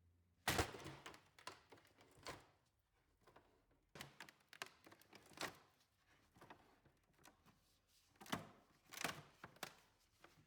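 Irregular knocks and clatters of wood and metal being handled while working on an old desk. A sharp knock comes about half a second in, with further groups of knocks around four to five seconds in and again near eight to nine seconds.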